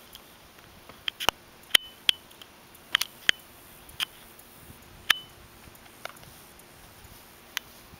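About ten sharp clicks at irregular intervals, several with a brief high ringing tone after them.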